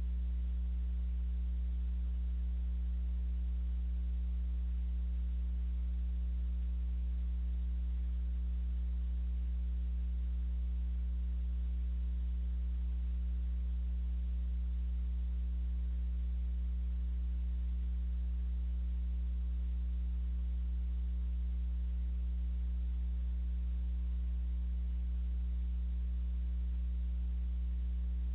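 Steady electrical mains hum in a security camera's audio feed: a low drone with a faint buzz of overtones above it and light hiss.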